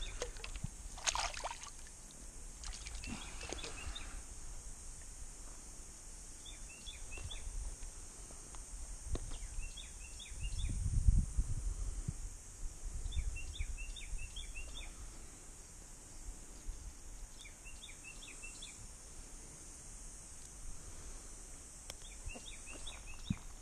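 A bird calling again and again in short bursts of several quick downward-sliding chirps, over a steady high hiss. A brief low rumble about halfway through is the loudest sound.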